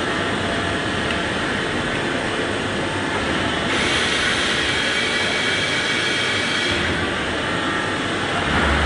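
Concrete paving block machine running: a steady, loud mechanical rumble and clatter, turning harsher and higher-pitched for about three seconds in the middle.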